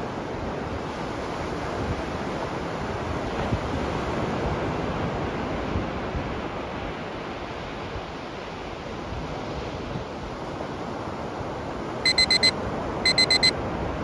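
Ocean surf breaking and washing up a sandy beach: a steady rush. About two seconds before the end, two quick groups of four high electronic beeps sound, roughly a second apart: a countdown timer's alarm going off as it reaches zero.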